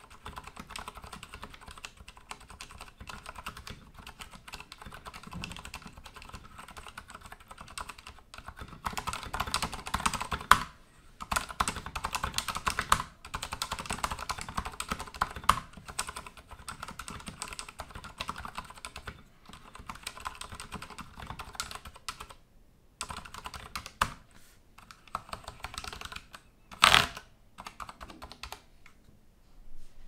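Typing on a Durgod Taurus K320 mechanical keyboard fitted with Cherry MX Silent Red linear, dampened switches: a fast, continuous run of key presses with a few short pauses, busier and louder in the middle. A single louder thump comes a few seconds before the end, and the typing then stops.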